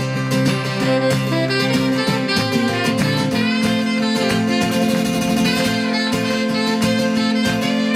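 Tenor saxophone playing the melody over a strummed acoustic guitar: an instrumental break between the sung verses of a folk song.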